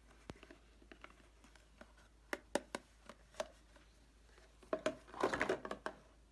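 White slime with polystyrene beads mixed in, squeezed and worked by hand: scattered sharp crackles and pops, then a dense run of crackling near the end.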